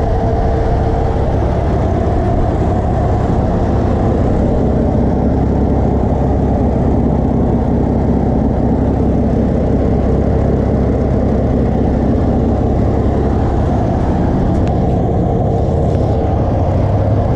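Single-turbo Toyota 2JZ inline-six, swapped into a Nissan 240SX (S14), idling steadily.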